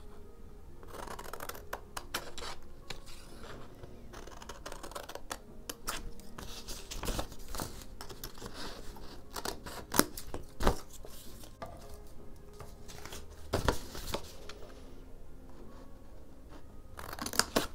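Scissors cutting painted watercolour paper by hand: a steady run of irregular short snips, with a few louder clicks about ten and fourteen seconds in.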